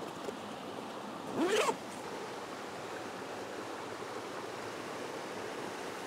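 A camera backpack's zipper pulled open in one short zip about a second and a half in, over the steady rush of a woodland stream.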